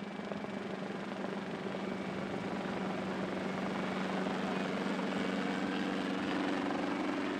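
Schweizer 300 (Hughes 269)-type light piston helicopter flying low overhead: a steady drone of engine and rotor that grows a little louder over the first few seconds.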